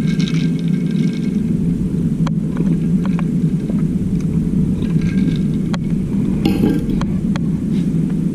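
A steady, loud mechanical rumble from a machine running, with several sharp clicks or taps over it and a brief rattling burst about two-thirds of the way through.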